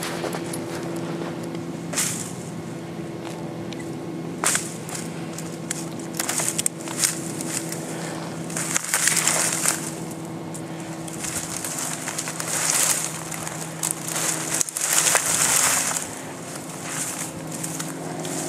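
Irregular crunching and crackling of footsteps in snow and dry brush being trampled, in uneven bursts, over a steady low hum.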